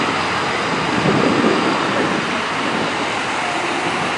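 Wind rushing over the microphone, with a stronger gust about a second in, over the steady noise of street traffic and emergency vehicles.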